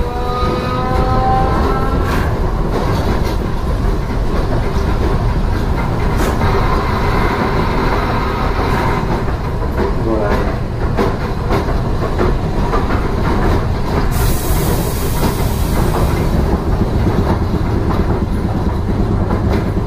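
Iyo Railway 2000 series streetcar, a former Kyoto City Tram car, heard from inside while running: a steady rumble of wheels on rail with clicks over the track. A rising motor whine in the first second or two as it picks up speed, and a hiss for about two seconds near the three-quarter mark.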